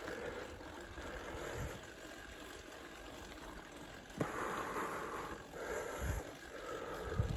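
Mountain bike rolling along a dry dirt trail: a steady rush of tyre and riding noise, with a sharp knock about four seconds in and a few short low thumps over bumps.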